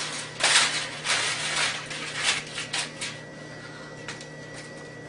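Aluminum foil crinkling and rustling as it is pressed into a metal baking pan, in a run of crackly bursts that stops about three seconds in.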